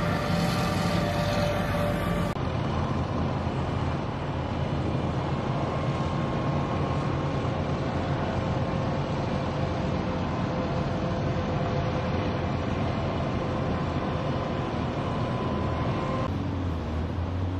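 Military amphibious assault vehicles driving on a beach: steady diesel engine and running-gear noise with a low rumble and a faint whine. The sound changes abruptly about two seconds in and again near the end.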